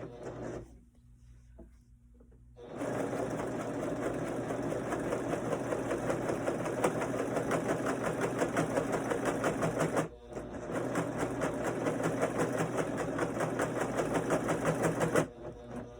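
Husqvarna Viking Huskylock S25 serger running fast, overlocking the raw edge of a cloth diaper. It runs in steady stretches, stopping for about two seconds near the start, pausing briefly about ten seconds in, and stopping again just before the end.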